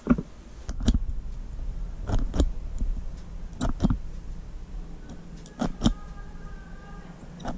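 Doorbell push-button pressed and released several times, each press a pair of sharp clicks about a third of a second apart. After the last press a faint steady ringing of several pitches sounds for over a second.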